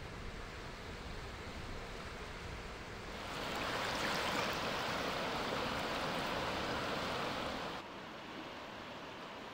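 Rushing river water, a steady hiss. It grows louder about three seconds in, while the swirling current is close, and drops back abruptly near the end.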